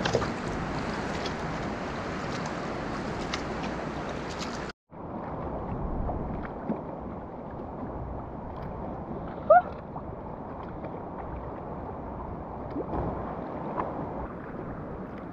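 Water splashing and lapping against a kayak hull as it is paddled across calm sea. The sound drops out for an instant about five seconds in and comes back duller. A short rising squeak about nine and a half seconds in is the loudest sound.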